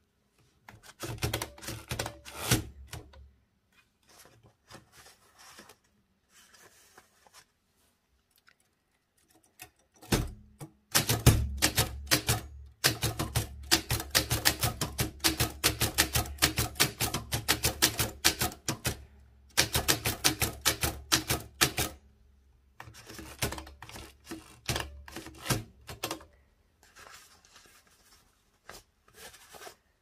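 Smith Corona Four portable typewriter from the 1920s typing onto cotton fabric: rapid keystroke clacks in runs, separated by short pauses. The longest and loudest run is in the middle, and the runs near the start and end are fainter.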